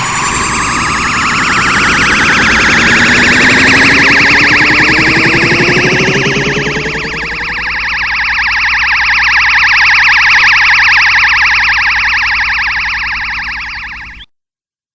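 Anime Kamehameha energy-beam sound effect: several tones glide upward together for about seven seconds, then settle into a steady, fast-warbling electronic hum that fades and cuts off abruptly about fourteen seconds in.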